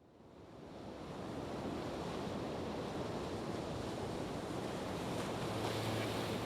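A steady rushing noise fades in over the first second or two, then holds even. Low steady musical tones come in near the end.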